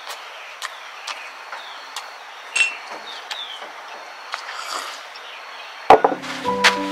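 Outdoor ambience with a steady high insect drone, a few short falling bird chirps and scattered light clicks and taps. Near the end there is one loud knock, and then music begins.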